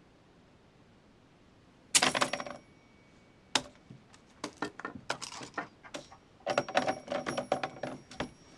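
Clattering and clinking of small hard objects in three clusters, starting about two seconds in, again around three and a half seconds, and a denser run near the end, some strikes leaving a brief high ringing.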